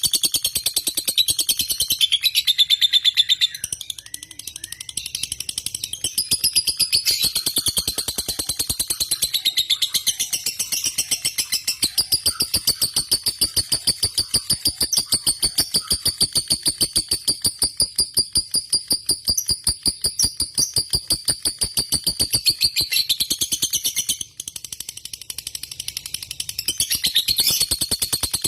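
Lovebird singing a long, fast chattering trill (the 'ngekek' song bred for in competition lovebirds), many high notes a second run on almost without pause, dropping briefly quieter about four seconds in and again near the end.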